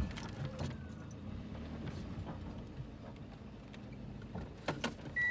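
A car running, heard from inside the cabin as a low, steady rumble, with a few sharp clicks and knocks near the end. Just as it closes, a steady high electronic beep starts.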